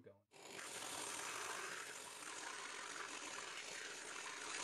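Coarse sandpaper rubbing on a cork rod handle as it spins on a cork lathe: a steady rasping hiss that starts about half a second in after a brief silence.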